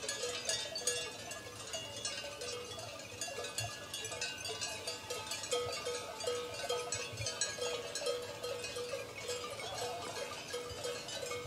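Small bells on a grazing flock of sheep, many at different pitches, clinking and ringing irregularly.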